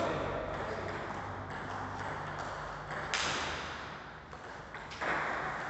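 Table tennis rally: the celluloid ball clicking off rubber paddles and the table, with sharper hits a little after three seconds in and near the end that echo in the hall.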